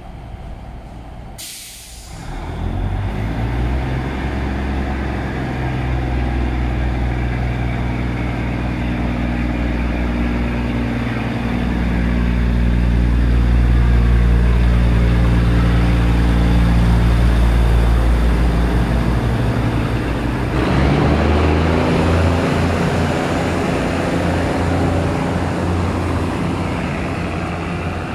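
Diesel railcar train pulling out: a short sharp air-brake hiss about a second and a half in, then the diesel engines running with a deep drone that builds in loudness and changes pitch about twenty seconds in as the train moves off.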